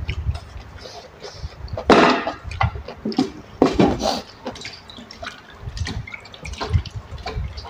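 Close-up wet chewing and slurping of rice noodles in curry sauce, with lip smacks and small mouth clicks; louder slurps about two seconds in and again around four seconds.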